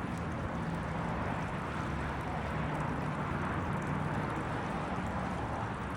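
Garden pond's water feature running, a steady rush of falling water.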